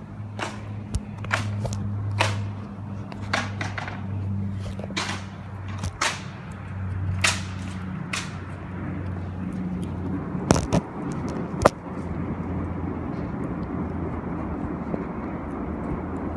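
Bamboo burning in a bonfire, crackling with sharp irregular pops about once a second, the two loudest cracks about ten and eleven seconds in, over a low steady hum.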